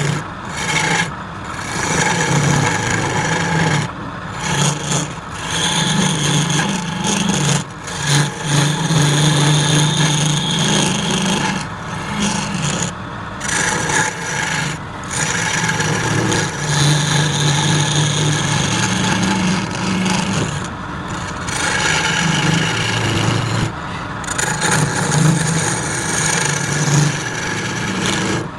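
Wood lathe running with a turning tool held against the spinning wood, giving a steady rasping, scraping noise over a low motor hum. The noise breaks off briefly several times.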